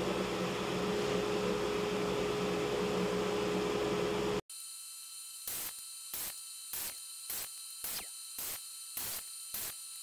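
Shop dust collector running with a steady rushing hiss and hum. About four and a half seconds in it cuts off abruptly and is replaced by a quieter rhythmic background track with a soft pulse about twice a second.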